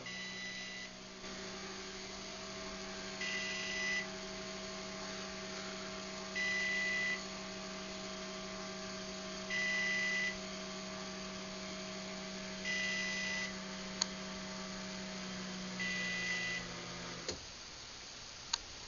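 Craftsman garage door opener running a closing cycle on its DieHard battery backup: a steady motor hum, slow on battery power, with a short beep about every three seconds. The motor stops with a click near the end.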